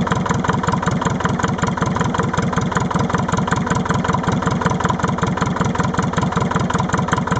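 Leyland 154 tractor's 1.5-litre four-cylinder diesel engine idling steadily with a rapid, even firing beat, running cold; the owner says it has a misfire on one cylinder when it first fires up.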